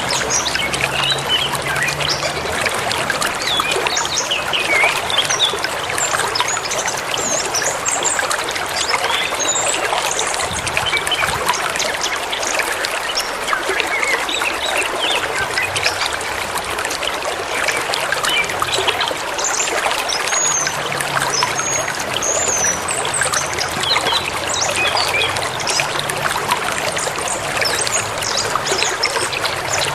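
A forest stream running steadily with a trickling, splashing rush, and small birds chirping over it throughout.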